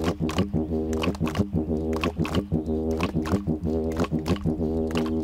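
Didgeridoo played with a steady low drone and a rich stack of overtones, pulsed in a quick even rhythm of about three or four accents a second.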